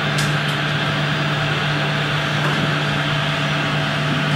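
Radio-controlled model Volvo excavator's hydraulic pump running steadily as the arm and bucket dig into sand, a constant mechanical hum with a faint click or two about a quarter of a second in.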